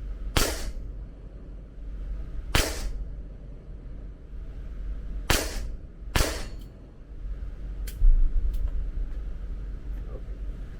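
Four gunshots on a shooting range, the first three a few seconds apart and the fourth coming less than a second after the third, followed by a few fainter clicks.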